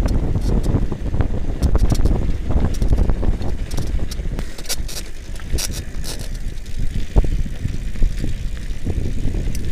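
Urban Terrain mountain bike coasting fast downhill: steady low rumble of tyres and wind buffeting the handlebar-mounted microphone, with scattered clicks and rattles from the bike over the road surface.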